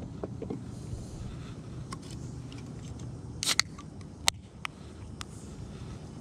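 A few light clicks and knocks from hands handling gear in a kayak, over a low rumble. The sharpest come about three and a half to four and a half seconds in.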